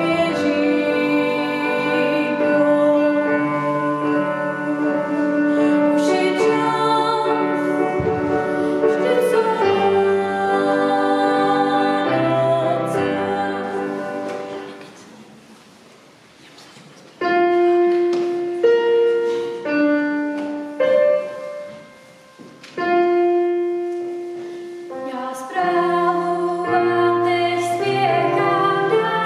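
Female voice singing with electronic keyboard accompaniment in a church. About halfway through the song ends, and after a short quiet the keyboard plays alone in sustained, decaying notes. Near the end the singing starts again with the keyboard, now with several voices.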